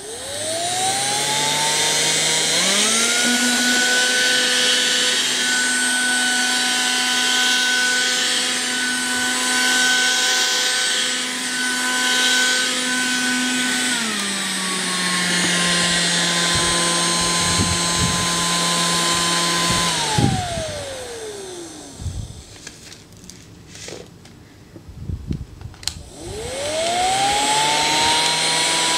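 Cordless handheld vacuum cleaner's motor spinning up with a rising whine, stepping up to a higher speed after about two seconds and running steadily. It drops to a lower speed about halfway through, then winds down with a falling whine about twenty seconds in. A few knocks sound in the lull before the motor spins up again near the end.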